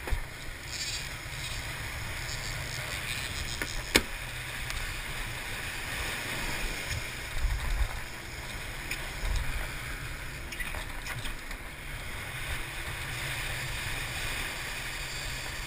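A sportfishing boat's engines rumbling low and steady while white water churns and rushes at the stern. There is a single sharp knock about four seconds in.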